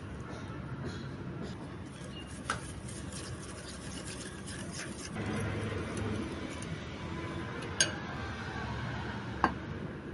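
Small wire whisk beating a wet yogurt-and-sugar mixture in a glass bowl: rapid ticking and scraping of the wires against the glass, with three sharper metal-on-glass clinks.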